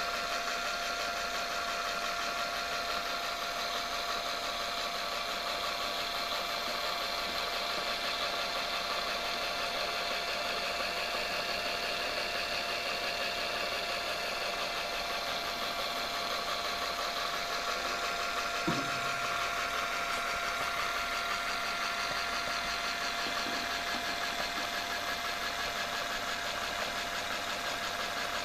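Steady, even whir of a G-scale LGB model's small electric motor and gears, the model running in place with its wheels spinning free, a constant tone running through it. A single faint click about two-thirds of the way through.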